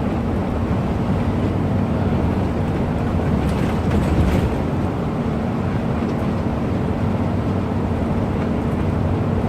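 Bus on the road: a steady engine drone and road noise, with a brief hiss about four seconds in.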